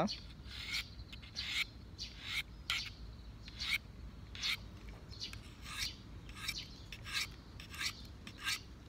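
Steel knife blade drawn in quick strokes across a dry Victorinox diamond sharpening stone, a short rasp about twice a second at an uneven pace.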